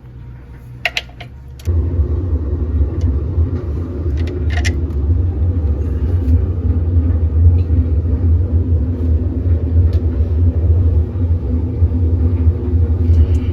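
A few light clicks, then a steady low rumble with a steady hum above it starts suddenly, about two seconds in.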